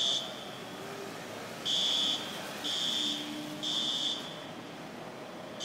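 Electronic fire alarm beeping in the three-pulse temporal pattern, the standard evacuation signal: a high beep about once a second, three in a row, then a pause of about a second and a half before the next three.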